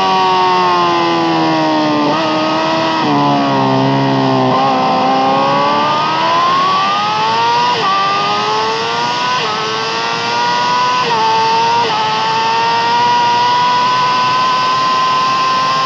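Yamaha R6 inline-four sport bike engine with an Akrapovic exhaust, heard onboard at racing pace. The revs fall over the first few seconds with a few brief steps while braking into a turn, then climb smoothly and hold high with a few small jumps as the bike accelerates out.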